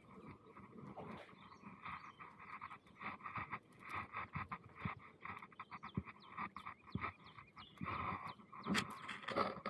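Monofilament cast net being handled and gathered by hand, giving many small irregular clicks and rustles from the mesh and its weighted edge. Animal calls sound in the background.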